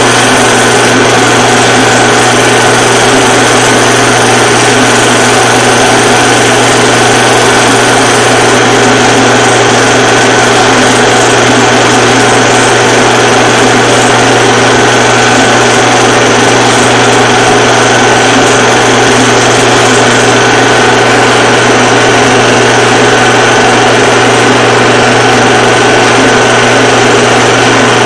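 A loud, steady mechanical whirr with a constant low hum, unchanging throughout.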